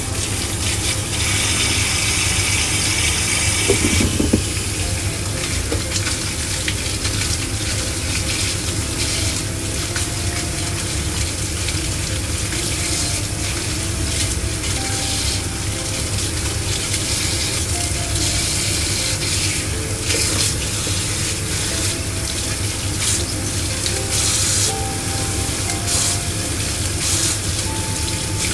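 Water running from a kitchen tap in a steady stream, splashing into the sink.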